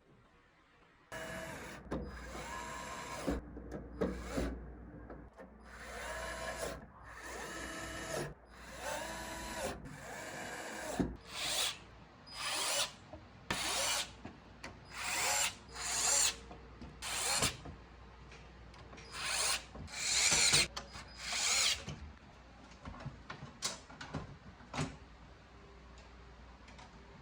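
Small electric screwdriver motor running in bursts as screws are driven: a few longer runs with the whine shifting pitch, then a string of short bursts about a second apart, then a few light clicks near the end.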